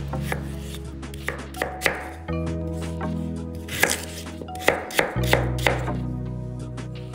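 Chef's knife chopping a peeled raw potato into cubes on a wooden cutting board: about a dozen sharp, uneven knife strikes against the board.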